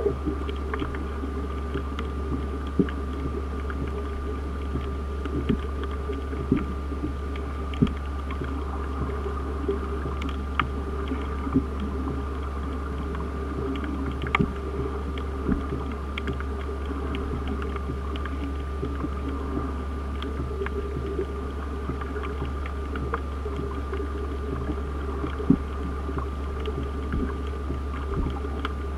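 Underwater sound among reef fish: a steady low drone and a constant faint high tone, with scattered short clicks and crackles throughout.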